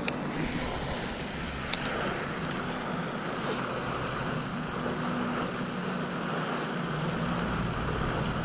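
Steady rushing outdoor noise, mostly wind on the microphone. Two short sharp clicks, one at the very start and one a little under two seconds in.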